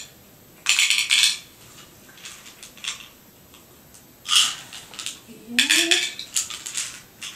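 Pills rattling in a small plastic pill bottle and clicking into the compartments of a plastic pill organizer, in three bursts of rattling and clicking, the last one the longest.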